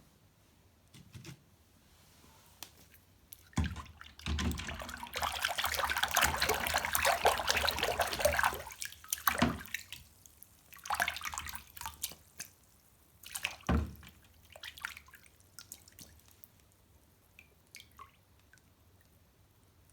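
Water running from a tap for about four seconds, then a few short splashes, as toy cars are washed; small knocks and clicks of handling in between.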